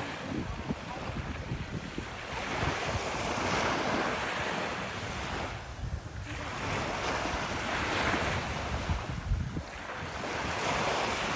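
Ocean surf breaking and washing up a beach, the rush of the waves swelling and fading every few seconds, with wind buffeting the microphone as a low rumble.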